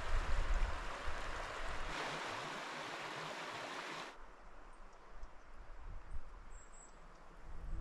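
Running water of a hill stream flowing steadily, which cuts off suddenly about four seconds in, leaving a quieter outdoor background.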